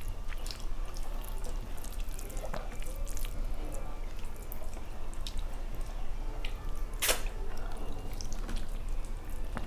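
Wet eating sounds. Fingers mash and mix soft, sticky boiled rice with egg and mashed potato, with chewing and lip smacks. They come as a series of small wet clicks, with one sharper click about seven seconds in.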